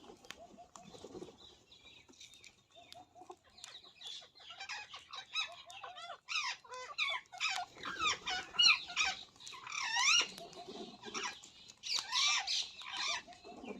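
Rose-ringed (ringneck) parakeets calling: a rapid series of shrill, sweeping squawks. They grow louder and come thick and fast from about six seconds in.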